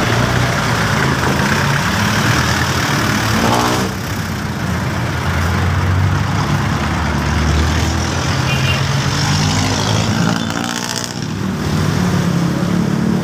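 Motor vehicle engine running in street traffic, its revs climbing twice, about three and a half seconds in and again near ten seconds.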